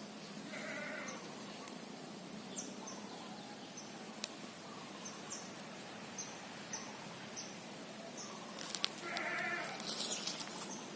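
An animal calls twice, about a second in and again near the end, each call short and bleat-like. A string of short high chirps repeats all through, with a couple of sharp clicks and a brief rustle near the end.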